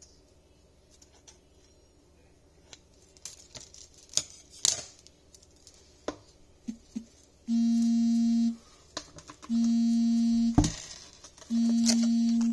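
Three long, steady electronic beeps about two seconds apart, each one pitched tone at the same level. Before them come a few scattered sharp clicks of scissors snipping faux fur.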